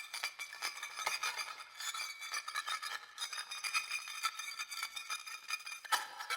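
A sound effect of dense, rapid, irregular clinking and rattling, like small metal or glass pieces jostled together, with a high ringing over the clicks.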